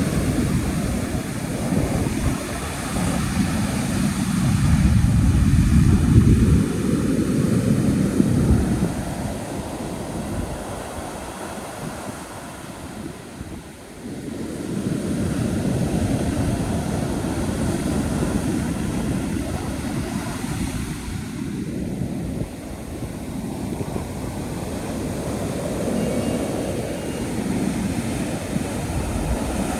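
Ocean surf breaking on a beach: a steady rush of waves that swells loudest about four to nine seconds in, eases to a low around thirteen seconds, then builds again.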